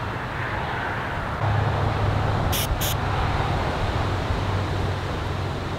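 Two short hissing sprays from an aerosol can, about a third of a second apart, over a steady low hum in the background.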